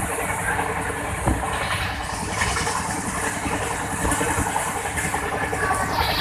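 Wheels of the 12315 Ananya Express running on the rails at high speed: a steady, dense rumble and rattle of track noise, with one louder thump about a second in.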